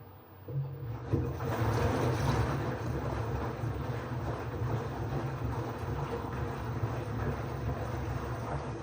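LG FH0B8LD7 front-loading washing machine running its drum-cleaning cycle: a steady low rumble with a broad hiss. It starts about half a second in, grows louder about a second in, and dies down near the end.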